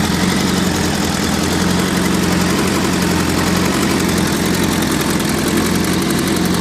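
Honda CBR1000F inline-four engine idling steadily with a fast, even mechanical rattle, the noise the owner puts down to the cam timing chain.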